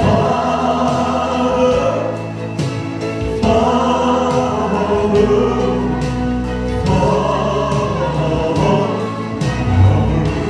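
Gospel music: a backing choir sings sustained chords over a steady beat.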